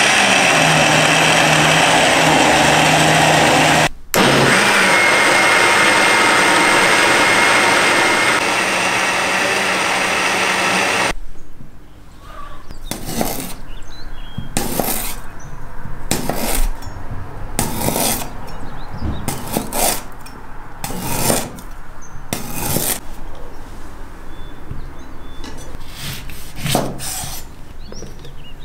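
Countertop blender motor running steadily as it purées beetroot and carrot, with a momentary break about four seconds in, cutting off after about eleven seconds. Then a kitchen knife slicing fresh ginger on a wooden cutting board: about a dozen separate cuts, each knocking on the board.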